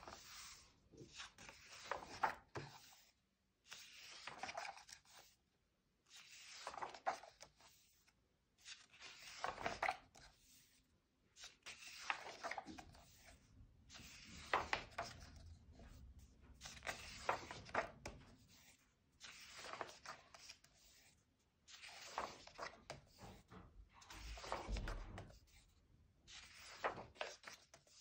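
Pages of a paperback colouring book being turned one after another, each turn a papery swish and rustle, about one every two to three seconds.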